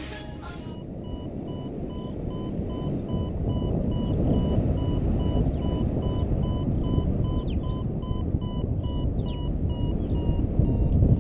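Paragliding variometer giving a steady run of short beeps at one pitch from about a second in, its climb tone while the glider rises in lift. Under it, wind rushes over the microphone and grows louder.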